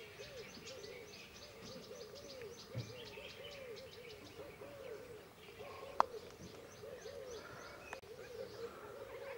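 A steady chorus of animal calls: short, low notes that rise and fall in pitch, two or three a second, over quick high chirps. A single sharp click comes about six seconds in.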